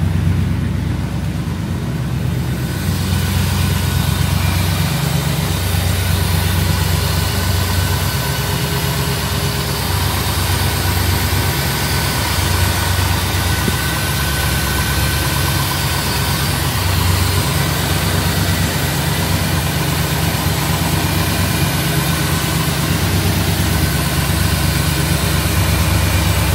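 A 1969 Ford F100's V8 engine idling steadily after a cold start. The sound turns brighter and fuller about three seconds in, with the fan and belts heard more plainly.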